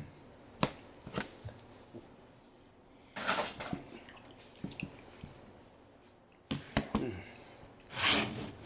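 A child eating cut mango with a metal fork from a plastic bowl: scattered sharp clicks of the fork against the bowl, and a few short louder noises as a piece goes to the mouth, the loudest about eight seconds in.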